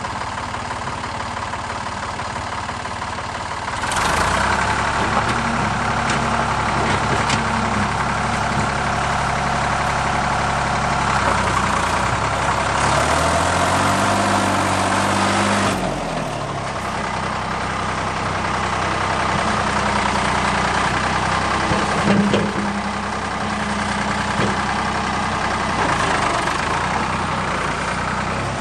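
Ford 555 backhoe's diesel engine running. About four seconds in it revs up and works under load, its pitch dips and rises again around fourteen to sixteen seconds in, and then it settles back to a lower, steady run.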